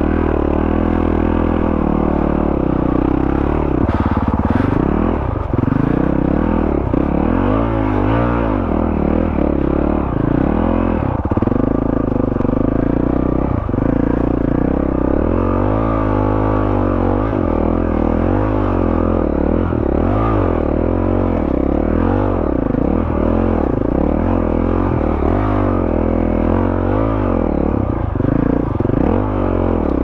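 2021 Honda CRF450RL's single-cylinder four-stroke engine through a Yoshimura RS-4 full exhaust, ridden on a dirt trail with the engine note rising and falling again and again as the throttle is worked and gears are changed.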